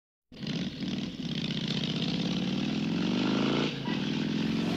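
Motorcycle engine accelerating hard, its pitch climbing steadily. About three and a half seconds in the pitch and level drop briefly as it shifts up a gear, then it pulls on.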